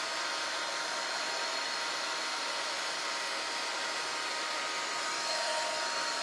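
Steady blowing noise of a small motor-driven fan, with a faint steady whine running through it.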